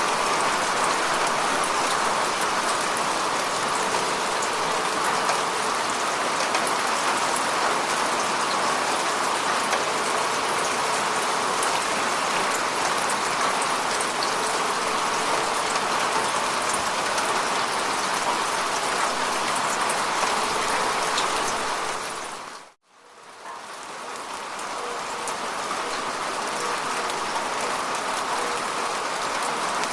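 Steady rain falling on lake water: an even hiss of many drops with fine ticks of single drops. About three-quarters of the way through it fades briefly to silence and swells back up.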